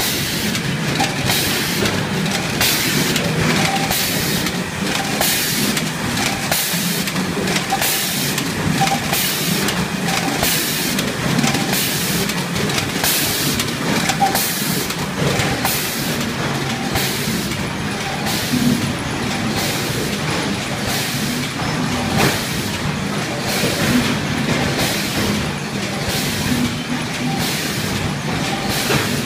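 Qumec CasePacker CP50 case-packing machine and its bag conveyor running in production at 46 bags a minute: steady machine noise with short bursts of hiss repeating about every two-thirds of a second, which grow weaker toward the end.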